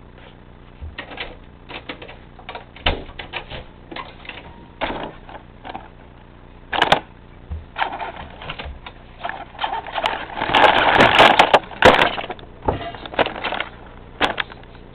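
Irregular clicks, knocks and rattles from a Traxxas Stampede R/C truck with a camera and light mounted on top, jolting as it moves. A dense burst of rattling comes about ten to twelve seconds in.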